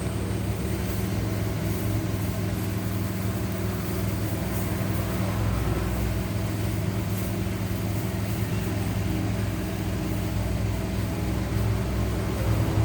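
A steady low hum that runs on without change.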